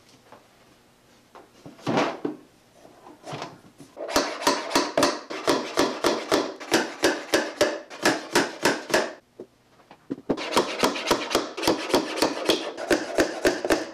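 Small hammer tapping small nails sideways into the inside edge of a wooden picture frame to hold the backing board in: quick, even light taps, about three or four a second, in two runs with a brief pause between. Before the taps, light handling and a single knock as the portrait and backing are set into the frame.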